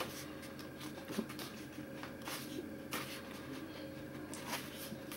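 Sheets of a scrapbooking paper pad being leafed through by hand: faint, scattered paper rustles and flicks.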